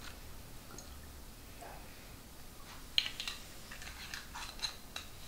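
Quiet kitchen handling: a sharp knock about three seconds in as the glass olive oil bottle is set down on the stone countertop, followed by a few light clicks and taps.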